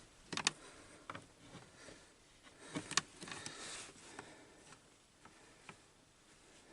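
Faint, scattered clicks and handling noises from a plug and its wiring being checked by hand, with a short hiss of rustling about three seconds in.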